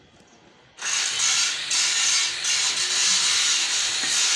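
A loud, steady hiss starts suddenly a little under a second in and keeps going, its strength wavering slightly.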